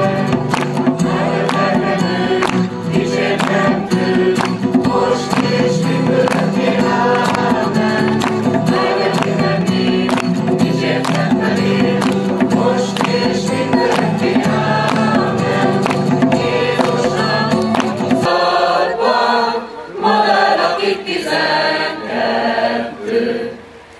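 Mixed choir of men and women singing, accompanied by a djembe hand drum and an acoustic guitar. About 18 seconds in the drum and guitar stop, and the choir sings on unaccompanied in short phrases with brief pauses.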